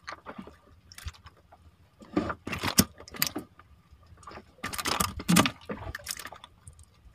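Hand-handling noises: scattered rustles, clicks and crackles as fishing hook and line are worked free of a freshly caught fish, in a few short bursts with a louder cluster about two to three seconds in and another about five seconds in.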